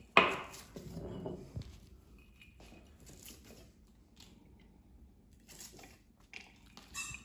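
Kitchen knife cutting baby corn on a wooden chopping board: a handful of scattered, crisp cuts and taps. A louder sudden sound comes right at the start and fades within about a second and a half.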